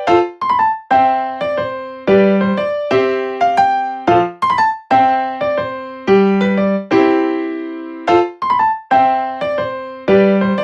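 Background music: a bright piano or electric-piano melody of struck notes that ring and fade, in a phrase that repeats about every two seconds.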